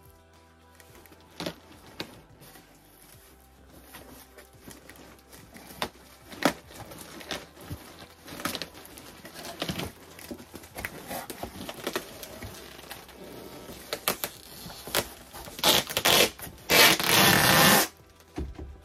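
Packaging being unpacked from a delivered box: rustling and crackling with scattered clicks, then loud tearing sounds near the end, the longest lasting about a second.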